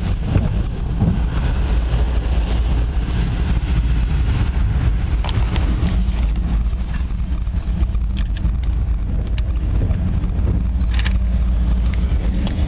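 Steady low rumble of a car's engine heard from inside the cabin, with a few short sharp taps and knocks in the middle and near the end.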